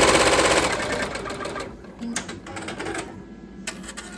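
Multi-needle embroidery machine stitching rapidly, at around a thousand stitches a minute, into a knitted beanie. About a second and a half in the stitching stops, and a few separate clicks and clunks follow as the machine trims the thread and shifts to the needle with the next colour.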